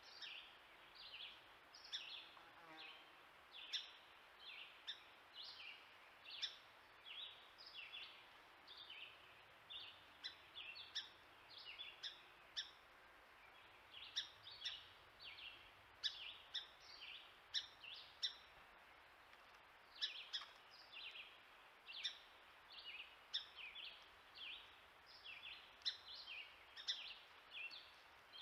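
Small songbirds chirping in the woods: short, high, downward-sliding notes repeated about once or twice a second, over faint background noise.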